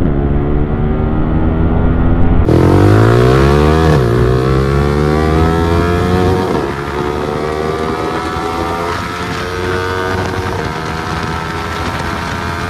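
Yamaha R15 motorcycle's single-cylinder engine at high revs on a top-speed run. The pitch climbs steeply after an abrupt change about two seconds in and drops once near four seconds as it shifts up a gear. It then climbs slowly and settles into a steadier, quieter high-rev drone.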